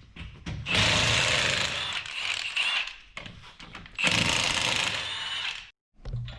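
Power impact wrench running in two long bursts, spinning out bolts on the front of the truck.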